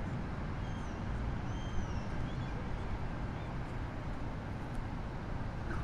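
Steady outdoor city background: a low rumble of traffic. A few faint, short, high chirps come between about one and two and a half seconds in.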